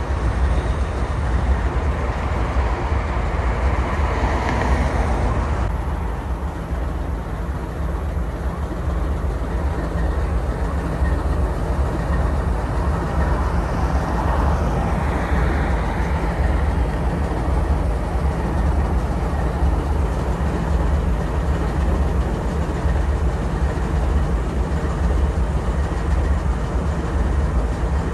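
GE diesel-electric locomotives (Dash 9-44CW and ES44DC) idling with a steady, deep rumble. A softer hiss rises and fades twice, a few seconds in and again about halfway.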